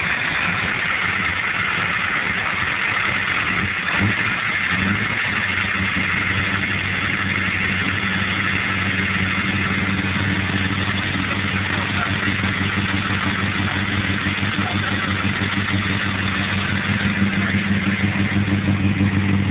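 Holden Commodore VX SS's LS1 V8, fitted with a big camshaft, idling with a steady, pulsing lope that grows a little stronger near the end.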